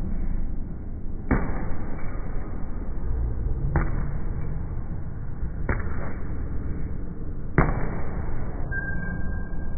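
Gloved punches landing on a hanging heavy punching bag: four single thuds about two seconds apart, over a steady low rumble.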